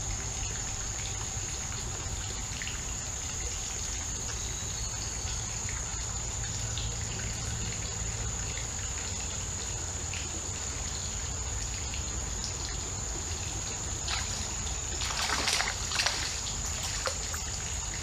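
Creek water trickling steadily over shallows, with a steady high whine above it. A brief burst of splashing comes about three quarters of the way through.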